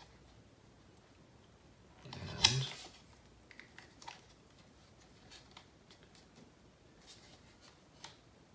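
Hands handling the plastic front-end parts of an RC buggy kit: scattered light clicks and rattles, with one louder clatter lasting under a second about two seconds in.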